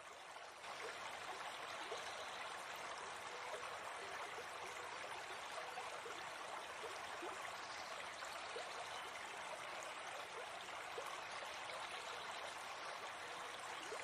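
Running stream water, a steady rush with small gurgles throughout.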